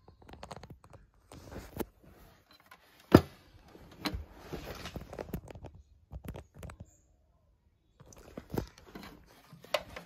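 Irregular knocks, clicks and rustling handling noise, with one sharp knock about three seconds in. No steady fan or motor is heard running.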